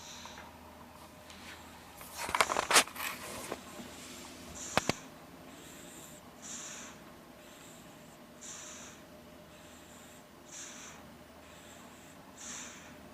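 Sleeping baby snoring softly, one short nasal snore about every two seconds from about six seconds in. Earlier, a loud burst of knocks and rattles about two seconds in and two sharp clicks near five seconds are the loudest sounds.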